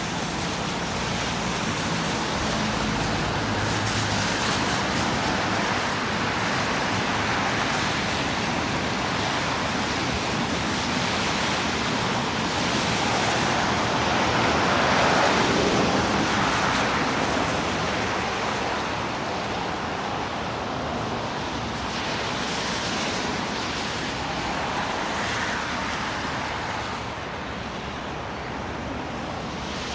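Steady rushing street noise of traffic and wind, swelling to its loudest about halfway through.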